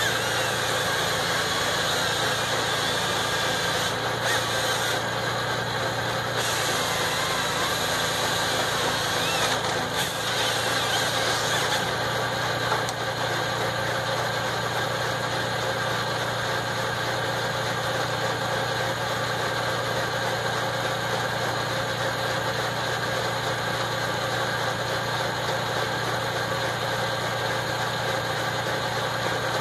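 MB trac 1000 tractor's six-cylinder diesel running steadily at a constant speed, powering a Vimek G30 tree processor. A high hiss rides over the engine for about the first twelve seconds, then stops, leaving the even engine hum.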